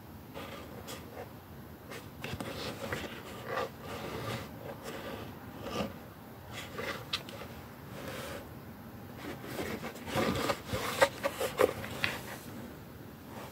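A hollow plastic cauldron is handled and turned over against fabric, making rubbing and scraping sounds with scattered light knocks. Near the end, as it is tipped over onto its base, there is a quicker, louder run of knocks and clatter.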